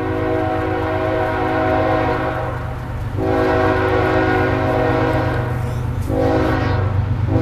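BNSF diesel freight locomotive's air horn sounding in long blasts, broken off briefly about a third of the way in and again near the end, over the steady low rumble of the approaching train.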